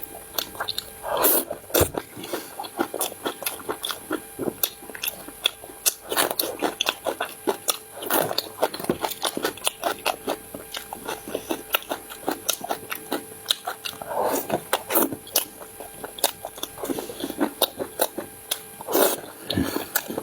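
A person chewing and biting food close to the microphone: a steady run of small wet clicks, with a louder bite every few seconds.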